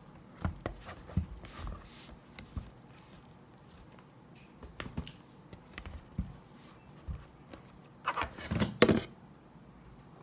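An iPad in a folio case being handled on a wooden desk: scattered light taps, knocks and rustles as the case is folded into a stand, then a louder clatter of knocks and scraping about eight seconds in.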